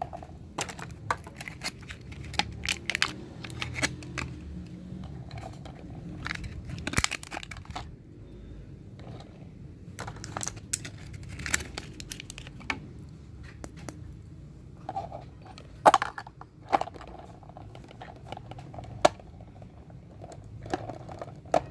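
Small mini-fridge toys being handled, with irregular clicks, taps and crinkling; the sharpest click comes about two-thirds of the way in.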